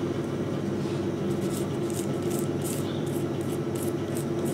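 Silicone pastry brush swishing over thin filo pastry on parchment paper, short strokes about three a second starting about a second in, over a steady background hum.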